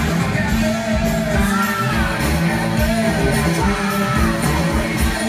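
Background music: a song with a singing voice over a steady low drum and bass beat.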